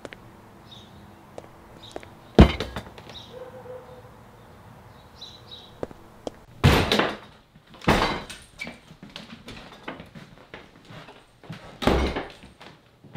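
A house's front door kicked in: one sharp, very loud thud about two and a half seconds in. Three more loud bangs follow in the second half.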